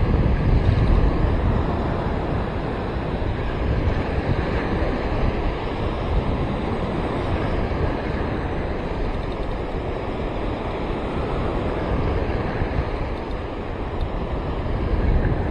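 Surf breaking and washing on a sandy beach, a steady rushing noise, with wind buffeting the microphone, hardest at the start.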